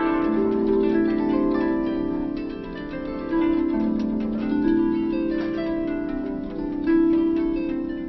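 Reverie Harp, a pentatonic lap harp, played with gently plucked strings whose notes ring on and overlap into a soft, continuous melody. Strong low notes sound under the higher ones, with louder plucks about three and a half and seven seconds in.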